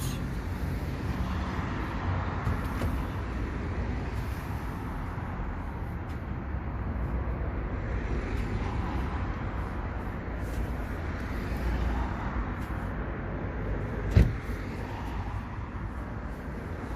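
Steady low vehicle rumble, with one sharp knock about fourteen seconds in.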